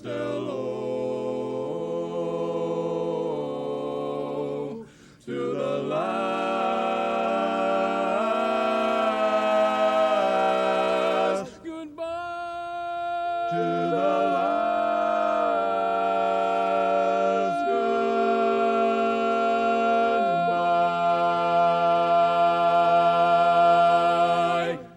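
Barbershop quartet singing a cappella in close four-part harmony, the final phrases carried on long sustained chords with two brief breaks. It ends on a long held final chord that cuts off sharply.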